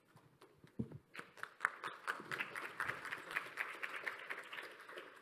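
A small audience applauding. The clapping starts about a second in, holds steady, and tapers off near the end.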